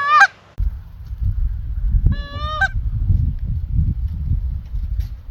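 Canada goose honks, twice: a short one right at the start and a longer broken honk about two seconds in, over a low rumble.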